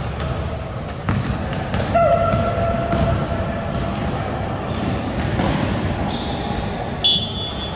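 Basketball bouncing on an indoor court floor during play, with players' feet on the court. There is a held tone for about a second from about two seconds in, and a sharp high squeal near the end.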